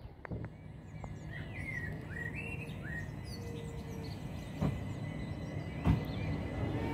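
Small birds chirping in short rising calls over a low steady rumble, with two sharp clicks later on; a train's rumble begins to build right at the end.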